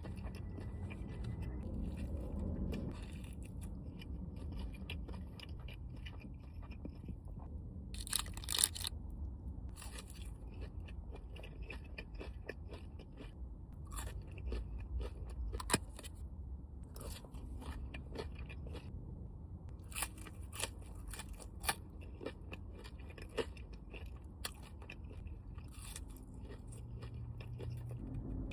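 A person eating close to the microphone, chewing and biting into crunchy food, with irregular sharp crunches, the loudest a little over 8 s in and near 16 s in.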